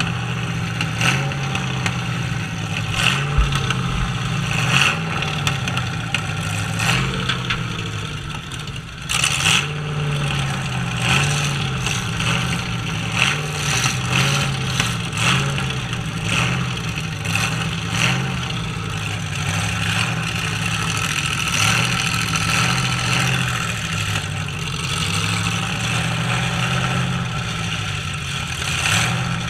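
Several demolition-derby truck engines running and revving together, with repeated sudden bangs of trucks hitting each other, the loudest about nine seconds in.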